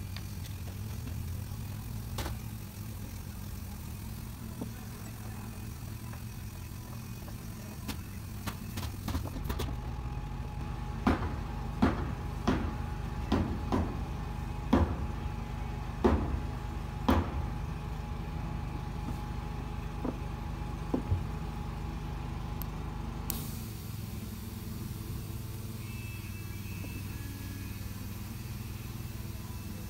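A steady low hum like an engine idling. Through the middle it is broken by a run of about ten sharp knocks and clicks, roughly one a second, from small hardware being handled at a door's bottom pivot plate.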